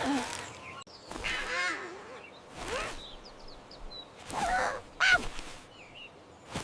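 A series of short animal calls, one with a wavering pitch, and a few faint high bird chirps between them.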